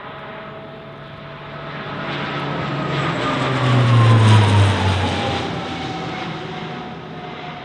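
Alenia C-27J Spartan's twin Rolls-Royce AE 2100 turboprops as the aircraft flies low overhead. The engine and propeller sound swells to its loudest about four seconds in, the engine tones sliding down in pitch as it passes over, then fades as it flies away.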